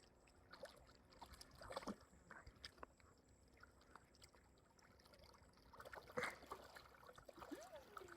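Near silence with faint, scattered splashes and sloshing of lake water.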